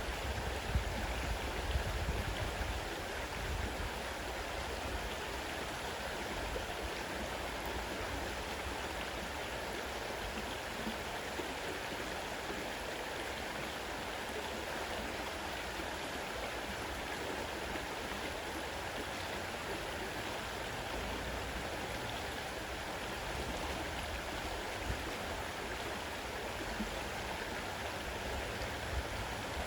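A fast-running forest river rushing steadily over its bed, with a low rumble in the first few seconds.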